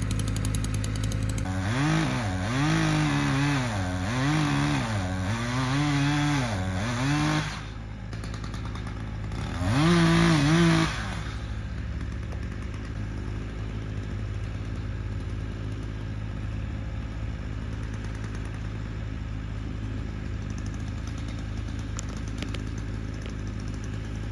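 Two-stroke chainsaw revving up and down in a cut about five times, then a shorter, louder burst of revs about ten seconds in. A skid steer's engine idles steadily underneath and carries on alone afterwards.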